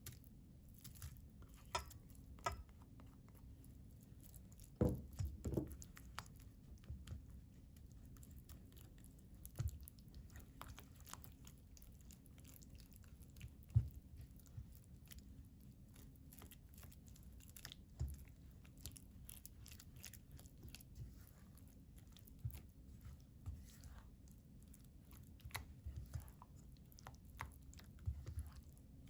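Faint kitchen prep sounds: a utensil working a soft, sticky mochi batter in a bowl, wet squishing and scraping with scattered light taps, a louder cluster of knocks about five seconds in and a sharp knock near the middle, over a steady low hum.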